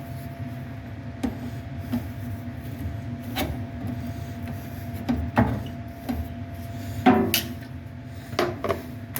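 Irregular knocks and clacks of a metal dryer vent duct being handled and worked back into a round shape, over a steady low hum.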